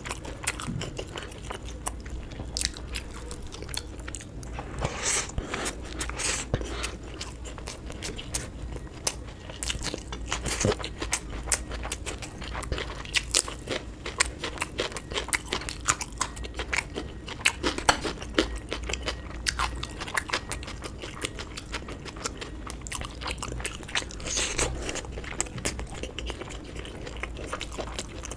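Close-miked eating: a person chewing and biting food with wet mouth sounds and frequent crisp crunches, irregular and continuous.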